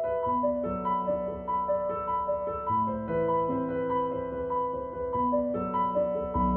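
Background piano music: slow sustained notes and chords under a high note that repeats about twice a second.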